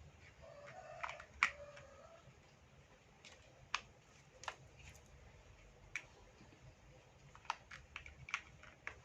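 Plastic toy building blocks being handled and fitted together, giving scattered light clicks and knocks at an irregular pace, the sharpest about one and a half seconds in.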